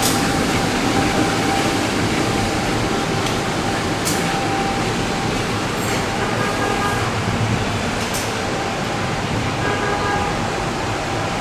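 A train running through the station, a steady rumble of wheels on rails with a few sharp clicks and brief faint squeals from the wheels.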